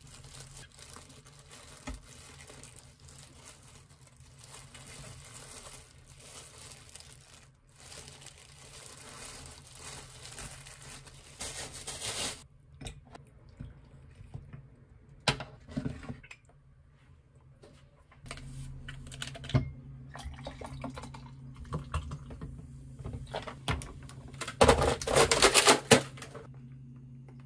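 Quiet kitchen handling sounds with scattered clicks, then near the end a louder splashing pour of liquid into a tall glass of ice, lasting about a second and a half.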